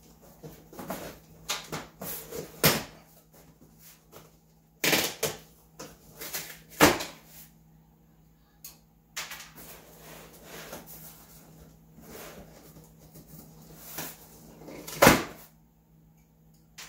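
Staples being pried out of a corrugated cardboard shipping box with a small hand tool: a run of sharp clicks and snaps with cardboard scraping and rustling between them, the loudest snaps about three, five, seven and fifteen seconds in.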